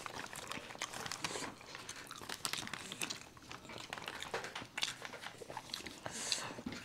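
Close-miked chewing, biting and wet mouth sounds of people eating momos, mixed with crinkling of foil trays and paper. A brief burst of paper rustling comes about six seconds in.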